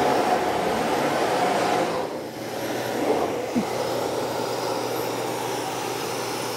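Steady mechanical whirring of machinery, with a higher steady tone over it; the tone and part of the noise drop away about two seconds in, leaving a quieter steady whirr.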